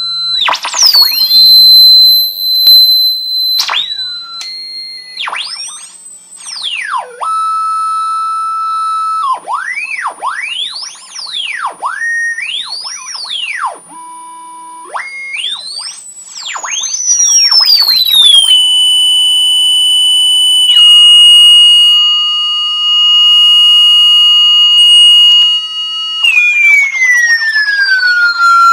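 Loudspeaker sounding the drive signal of a homemade 4046 phase-locked-loop oscillator and inverter bridge: a loud, high-pitched electronic tone that swoops up and down and jumps between held pitches as the frequency knobs are turned. It holds steady for several seconds in the second half, then glides down and back up near the end.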